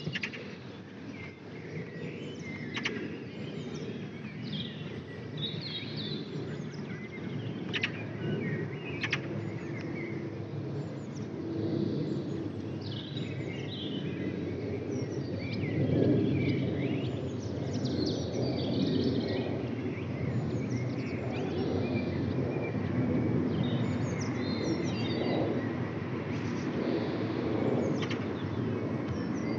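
Airbus A320 airliner passing overhead on descent: a distant low jet rumble that grows louder toward the middle, carrying the howl from the cavities of the wing's fuel over-pressure protectors that is typical of the A320 family on approach. Birds chirp throughout.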